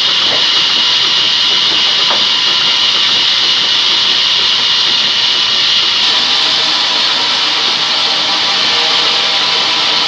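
Large sawmill band saw running with a steady, loud, high hiss.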